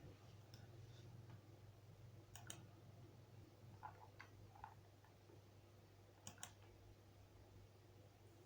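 Near silence: a steady low electrical hum with a few faint clicks, two of them quick double clicks.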